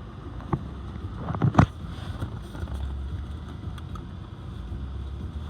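Steady low road rumble inside a moving car's cabin, with two short knocks, the louder one about a second and a half in.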